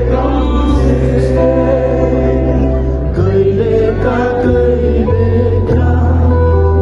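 Live band music over an outdoor concert PA, loud and steady, with long held bass notes and a sung melody above them.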